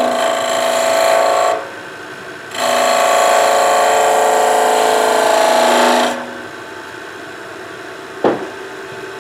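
A small skew chisel cutting a cove in wood spinning on a lathe: two cuts, a short one and then a longer one of about three and a half seconds, each a hissing scrape with a steady ringing pitch. A sharp tap comes near the end.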